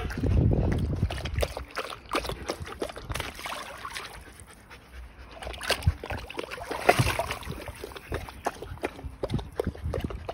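Dogs panting while a large dog wades in a shallow plastic kiddie pool, water sloshing and dribbling around its legs, with scattered short splashes and clicks.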